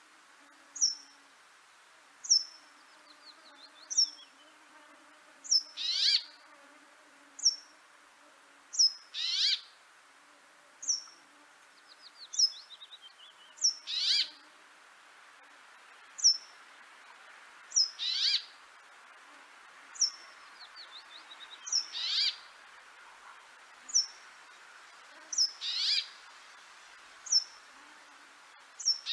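Small birds calling in a regular pattern: a short, thin high note about every second and a half, and every few seconds a louder, harsh call that falls in pitch, with a few faint twittering trills between.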